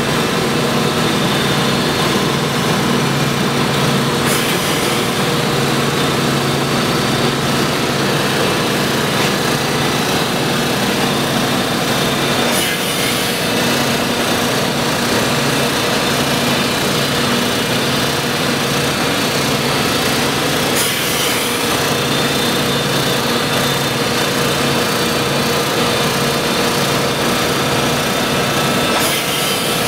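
Large Mattison grinder running under power, its electric motors and pumps making a steady machine hum of several low tones over a constant hiss.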